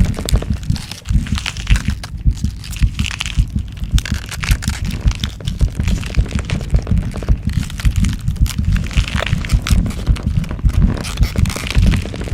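Growth transformation sound effect: dense, irregular cracking and crunching over a deep, pulsing low rumble that never lets up.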